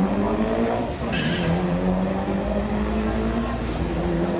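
Car engine held at steady high revs while the tyres spin and skid on the pavement as the car does donuts.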